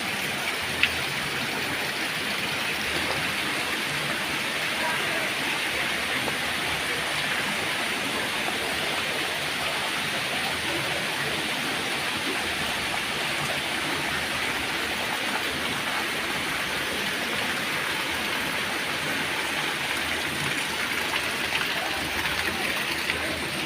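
Waterfall rushing steadily, a dense even hiss of falling water that does not change.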